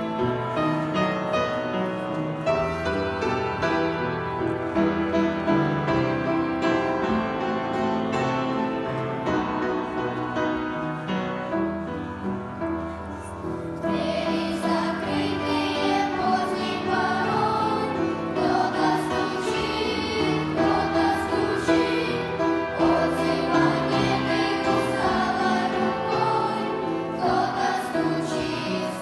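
Sunday school choir singing a song with instrumental accompaniment. The accompaniment plays alone at first, and the choir's voices come in about halfway through.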